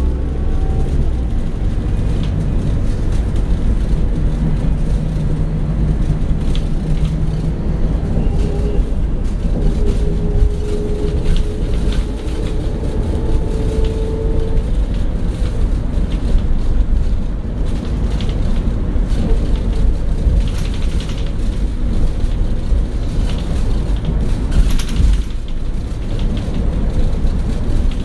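Scania K94 coach under way, heard from inside the passenger cabin: a steady low rumble of engine and road noise, with a faint whine that rises slightly in pitch between about five and fifteen seconds in.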